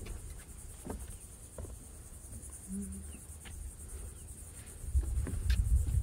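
Insects buzzing: a steady, high-pitched chorus that pulses rapidly. From about five seconds in, a louder low rumble rises beneath it.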